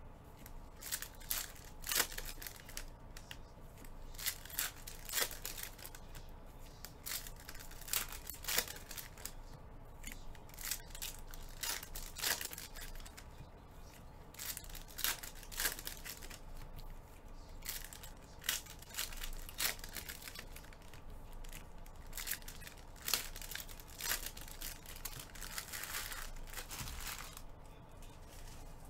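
Foil trading card pack wrappers being torn open and crinkled, and the cards slid and handled: a string of sharp rustles and snaps, with a longer tearing stretch near the end.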